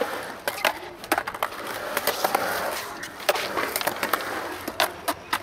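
Skateboard wheels rolling over the smooth concrete of a skatepark bowl, a continuous rolling noise that swells and fades as the board carves. Scattered sharp clicks and knocks run through it.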